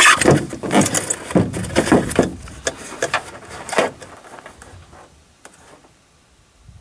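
Close handling noise: a series of knocks, clicks and rustles, dying away after about four seconds.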